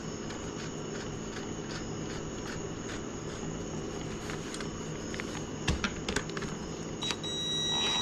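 Steady background hum with a few sharp clicks of parts being handled near six seconds. About seven seconds in, a Ryobi cordless power tool starts a steady high-pitched motor whine as it spins the nut onto the ebike's rear axle.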